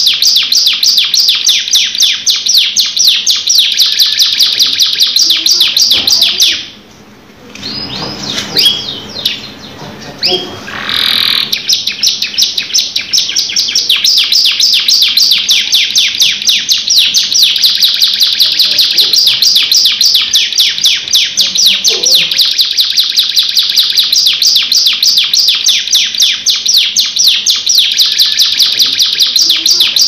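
Domestic canary singing a long, fast rolling trill of rapid high notes. The song breaks off about six seconds in, leaving a few softer, lower sounds, and picks up again about five seconds later, running on without a pause.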